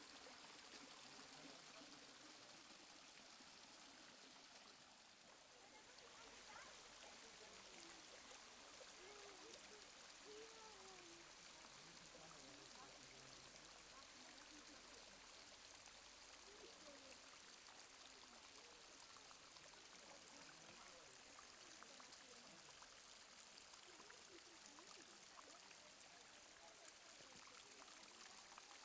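Faint, steady rush of running water from a mountain river's cascades.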